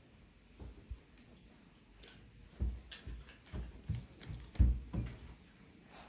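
Kitchen handling noises: a run of soft low thumps and light clicks from about two and a half seconds in to about five seconds, as utensils, containers or ingredients are moved and set down.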